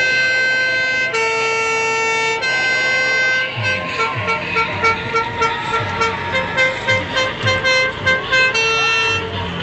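Loud horn notes: three long held notes at different pitches, then a run of short repeated notes over a thumping beat about twice a second, closing with another long note.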